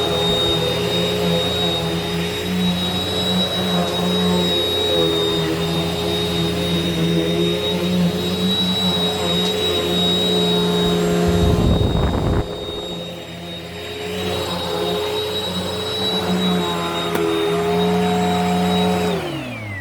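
WAP Power Speed 2-in-1 upright vacuum cleaner, a 2000 W corded model, running with a steady high whine over a rushing hum. There is a brief low rumble about twelve seconds in. Near the end it is switched off and the motor winds down, its whine falling in pitch.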